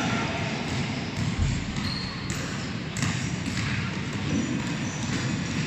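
Basketballs bouncing on a sports-hall floor as children dribble: several thumps at irregular intervals over a steady hall rumble.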